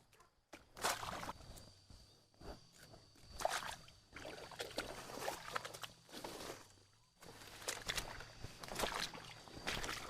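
Irregular sloshing and splashing of shallow water with footsteps, as of someone moving through floodwater, with a faint steady high-pitched whine starting about a second in.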